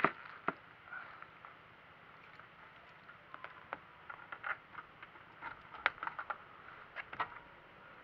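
Light, sharp knocks and clicks at irregular intervals over a faint hiss, the loudest right at the start and another about half a second later.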